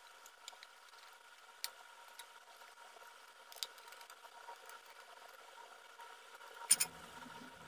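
Faint, scattered clicks of a screwdriver working the screws out of a sheet-metal ATX power supply case, with a louder clatter near the end as the case is handled, over a steady faint hum.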